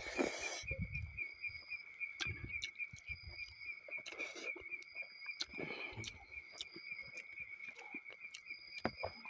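Close eating sounds: chewing and fingers working curry and rice, heard as soft low thuds and clicks. Behind them insects call steadily in a continuous pulsing trill, with a second, higher insect call in short repeated stretches.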